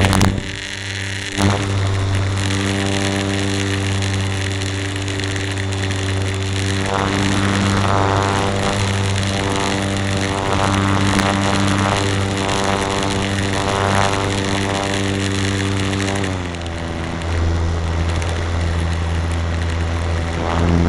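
Electric motor and propeller of a Super Cub LP radio-controlled model plane running with a steady buzzing drone over wind rush. The motor cuts out for about a second near the start, then runs on, its pitch stepping down a little about sixteen seconds in.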